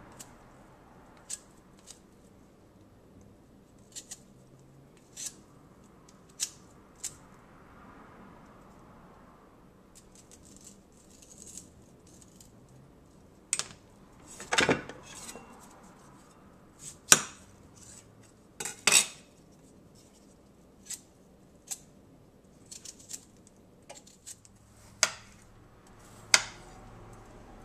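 Sharp clicks and taps of a vegetable peeler and then a knife against a hard stone cutting board while potatoes are peeled and cut up. The taps are scattered and irregular, with a few louder knocks around the middle and two more near the end.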